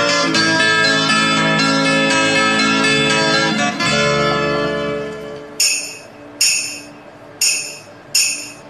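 Instrumental introduction to a song: sustained melodic music that thins out about five seconds in, followed by four short, bright percussion hits about a second apart.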